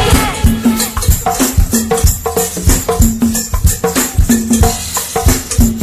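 A live go-go band playing an instrumental groove: a steady drum beat with hand percussion and short repeated pitched notes. The singing stops just as it begins.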